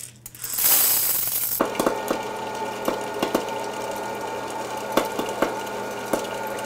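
Kernels rattle into a Presto Orville Redenbacher's hot air popper with a brief hiss. Then the popper's fan motor starts with a steady whir, and scattered sharp pops of kernels bursting come through it.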